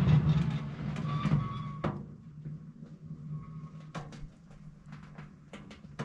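Hydraulics of a John Deere 220R front end loader bleeding off pressure as the joystick is worked with the engine off: a low hum that fades away over the first two seconds as the bucket settles, then a few light clicks and knocks from the joystick and loader.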